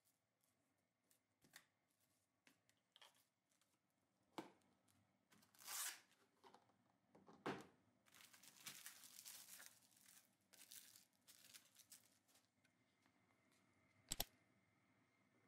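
Faint plastic cling wrap being torn off and then crinkling as hands press it down over a stainless steel tray, with one sharp click near the end.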